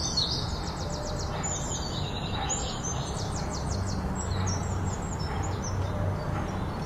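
Small birds chirping, with quick trills and short whistled notes, over a steady low background hum.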